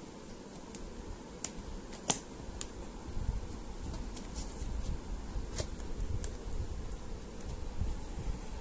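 A cardboard cookware box being handled and opened by hand: scattered sharp clicks and taps, the loudest about two seconds and five and a half seconds in, over low rustling and handling rumble.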